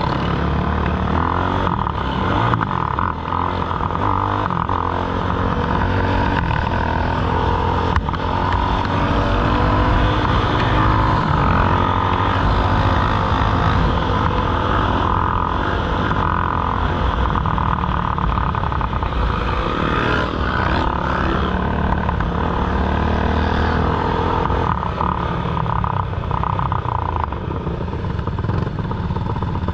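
Quad bike (ATV) engine running under way, heard from on board. The sound is steady and loud, and its pitch rises and falls with the throttle.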